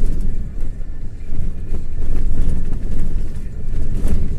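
Long-haul truck driving: steady low rumble of engine and tyres on rough patched asphalt, with a thump about four seconds in.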